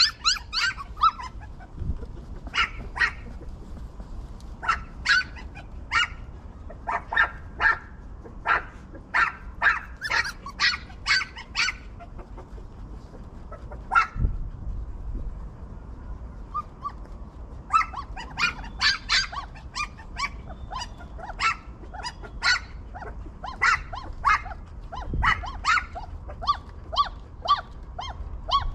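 Dogs barking in many short, sharp yaps in irregular runs, thinning out for a few seconds near the middle.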